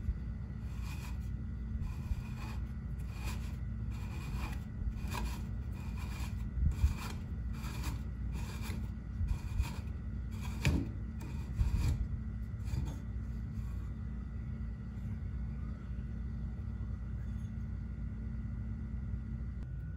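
Old hand air pump being worked by its T-handle: the plunger rod rubs and scrapes in the greasy, rusty barrel in short repeated strokes, about two a second, which die away a little past halfway. A steady low hum runs underneath.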